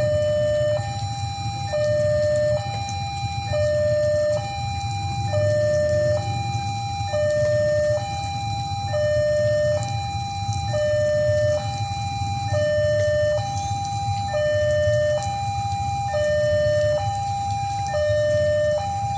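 Railway level-crossing warning alarm sounding: an electronic two-tone signal alternating high and low, switching about once a second, over a steady low rumble.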